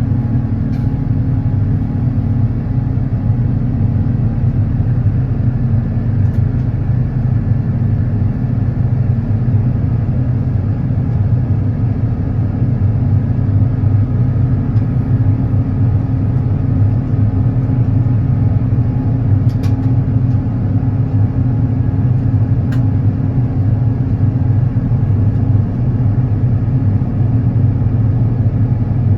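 Steady low rumble of engine and airflow noise inside the cabin of an Airbus A350-900 with Rolls-Royce Trent XWB engines, with a few faint ticks.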